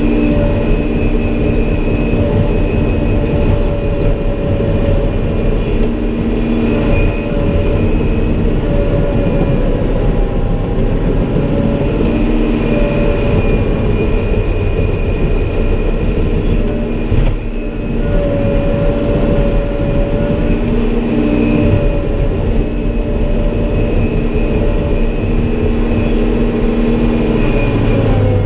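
Caterpillar 963 track loader's diesel engine running steadily under work while the loader handles dirt, heard from inside the cab, with a thin high whine over the engine drone. One short knock comes about two-thirds of the way through.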